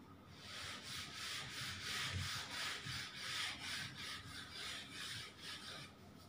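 Whiteboard duster wiping marker off a whiteboard: quick back-and-forth scrubbing strokes, about four a second, that stop shortly before the end.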